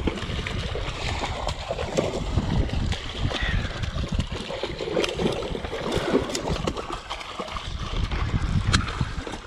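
A hooked queenfish thrashing and splashing at the water's surface as it is fought on a spinning rod, with wind buffeting the microphone.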